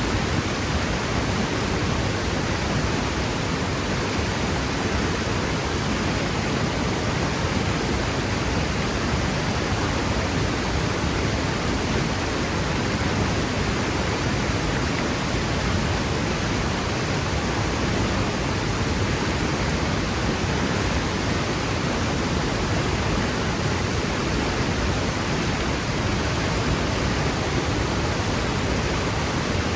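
Waterfall crashing steadily into its pool, a constant even rush of falling water with no breaks.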